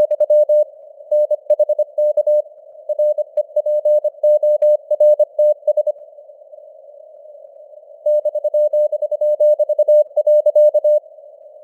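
Morse code at 25 words per minute: a single mid-pitched tone keyed on and off in dots and dashes over simulated radio hiss confined to a narrow band around the tone. The keying pauses for about two seconds midway, leaving only the hiss, then resumes and stops shortly before the end.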